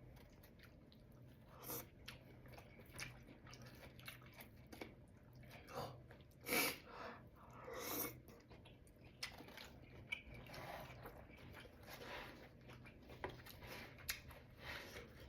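A person chewing and biting food close to the microphone: faint, scattered mouth and eating noises, with a couple of louder ones about six and a half and eight seconds in.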